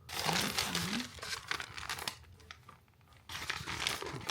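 Wrapping on bought food being opened: crinkling and tearing of the packaging, in two spells with a short lull about halfway through.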